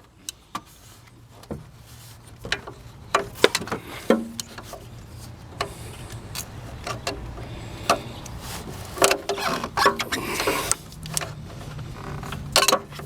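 Hand tools clicking, knocking and scraping on the metal hose clamp of a car's lower radiator hose as it is worked loose, with a longer scraping stretch near the end, over a steady low hum.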